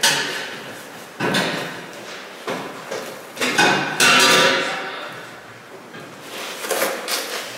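Irregular metal knocks and clanks from working on an exhaust pipe under a pickup truck, about eight or nine in all. Some ring on for a second or more after the strike.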